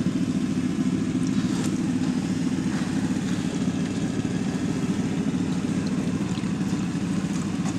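A small engine running steadily at a constant speed, an even low drone that holds through.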